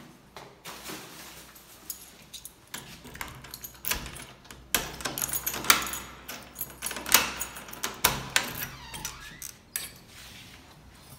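Footsteps, then the lock and metal lever handle of a glass-panelled door clicking and rattling as it is unlocked and pulled open, with a quick run of sharp clicks and knocks in the middle of the stretch.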